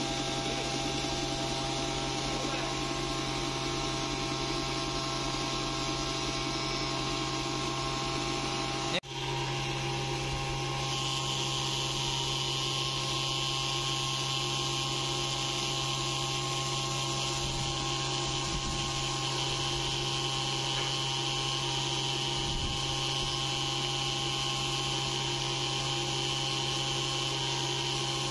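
Industrial sewing machine's motor running with a steady hum and whine. The sound breaks off for an instant about nine seconds in.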